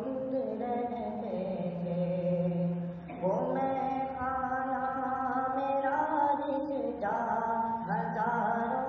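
Male voice singing an Urdu farewell tarana (nasheed) in long, held melodic phrases, with a brief break about three seconds in before the next phrase begins.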